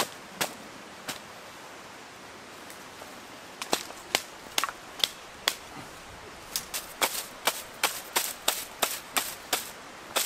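Sharp wooden taps of a thatcher's leggett beating the butt ends of water reed, dressing a thatch into place. The blows are spaced at first, then come in a quicker run of about four a second over the last few seconds.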